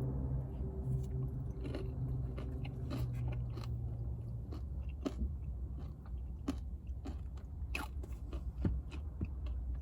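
Close-up chewing and crunching of mouthfuls of an acai bowl topped with oatmeal, with many short, sharp clicks and crunches. A steady low hum runs underneath.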